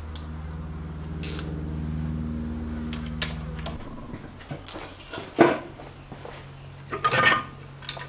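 A steady electric buzzing hum that cuts off about four seconds in, followed by metallic clinks and clanks of Ford C4 automatic transmission parts being handled on a workbench, the loudest knock about five and a half seconds in and a cluster of clatter near the end.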